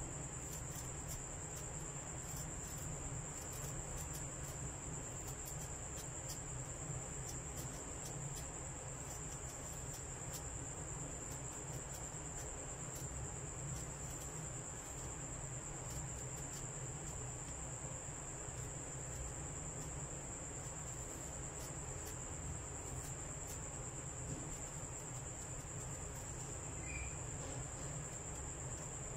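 Crickets trilling steadily at a high pitch, over a low, even background hum.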